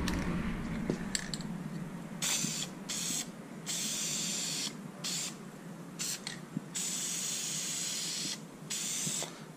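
Aerosol spray can of Dupli-Color vinyl dye hissing as it is sprayed onto a carpet floor mat. It comes in a string of on-off bursts, some short and some over a second long, starting about two seconds in.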